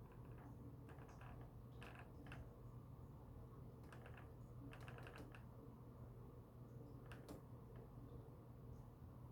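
Faint, irregular creaks and clicks, some single and some in quick runs of several ticks, over a low steady hum: the unexplained creaking the tenant is trying to record.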